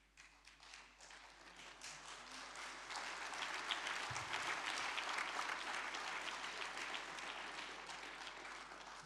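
Audience applauding, building up over the first few seconds, holding, then dying away near the end.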